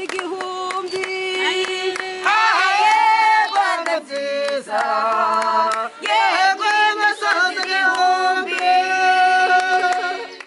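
A group of women and children singing together in a call-and-response style, with hand clapping.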